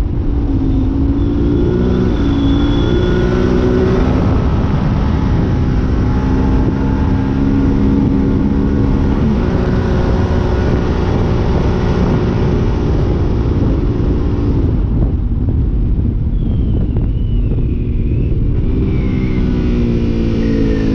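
2022 Yamaha Ténéré 700's parallel-twin engine through an Arrow high exhaust, pulling hard under throttle with its pitch climbing and stepping through the gears. It eases off about fifteen seconds in, then picks up again near the end.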